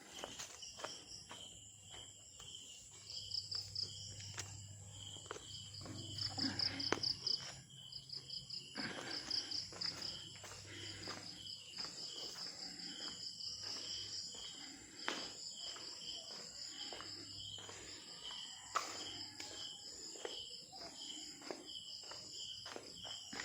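Insects chirping in high, rapidly pulsed trills that repeat over and over, with scattered sharp clicks and knocks in between.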